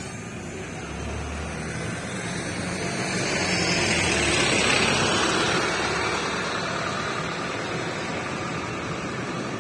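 Wright StreetDeck double-decker bus pulling away and driving past. Its engine and tyre noise swell to their loudest as it passes close, about halfway through, then fade as it drives off.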